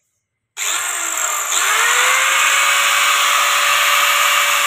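Electric angle grinder switched on about half a second in: its motor whine rises in pitch as the disc spins up to speed, then runs steadily at full speed.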